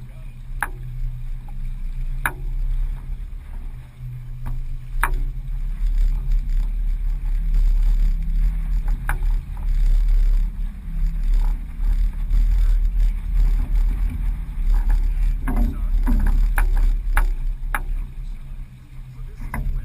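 Low, gusting rumble of wind and water aboard a sailboat under way, rising and falling in loudness, with a few sharp clicks and knocks scattered through it.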